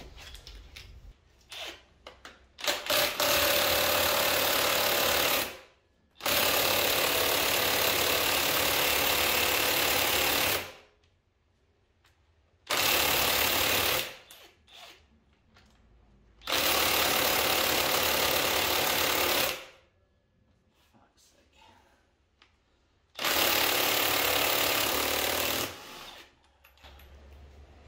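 Cordless impact wrench hammering on the crankshaft pulley bolt to undo it. It runs in five bursts of about two to four seconds each, with short pauses between them.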